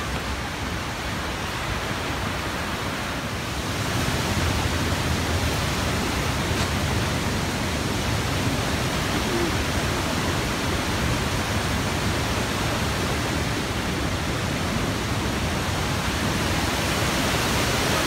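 Steady rush of the Ryūzu Falls cascade, a constant even noise of falling water that grows a little louder about four seconds in.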